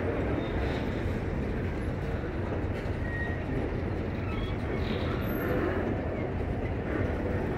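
Freight train of covered grain hopper cars rolling past close by: a steady rumble of steel wheels running on the rails.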